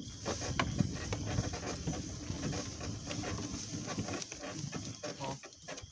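Quick, continuous panting breaths over a steady high drone of insects.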